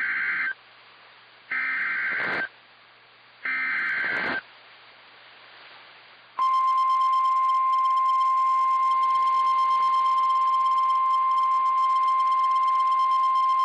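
NOAA Weather Radio Emergency Alert System (SAME) header: short bursts of buzzy digital data tones, three times about a second apart. About two seconds later a loud, steady single-pitch alert tone starts and holds. Together they signal the start of an emergency alert, here a severe thunderstorm warning.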